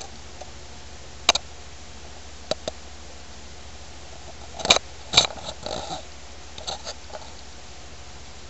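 Handling noise around the open oscilloscope chassis: a few sharp clicks and two short, louder rustling bursts about halfway through, over a steady low hum.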